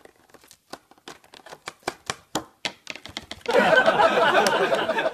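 Sharp, irregular clicks and taps of a parrot's beak on a clear plastic clamshell container, about three a second. About three and a half seconds in, a loud, rough, continuous noise takes over as the bird comes up against the microphone.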